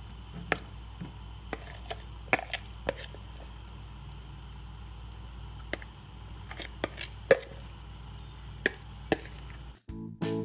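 Scattered sharp clicks and taps of a plate and a wooden spatula against a saucepan as chicken mince is scraped into it and stirred, over a steady low hum. Near the end the hum stops and piano music comes in.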